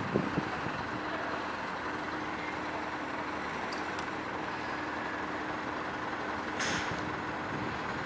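Fire department pump engine running steadily at idle, with a short hiss of air about two-thirds of the way through.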